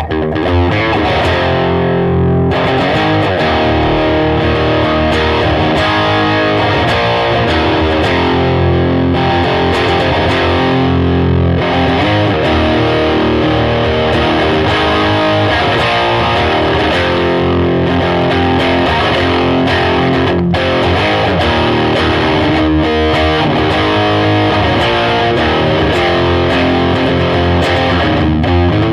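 Electric guitar played through an Ibanez TS5 Tube Screamer overdrive pedal into an amp on its crunch setting: distorted riffs and chords played without a break.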